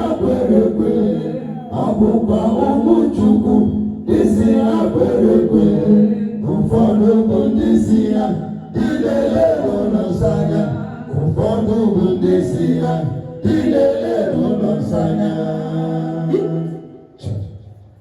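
Church congregation singing together in a loud chorus, with long held notes; the singing dies away near the end.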